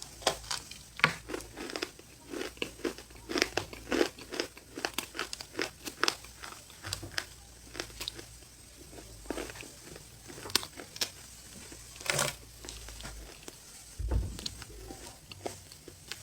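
Close-miked crunching and chewing of a snow bar: irregular sharp crisp crackles, with a longer, louder crunch about twelve seconds in.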